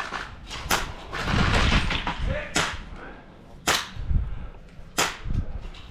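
Airsoft guns firing single shots: four sharp, separate cracks spaced irregularly over several seconds. There is a louder stretch of rustling noise about a second and a half in.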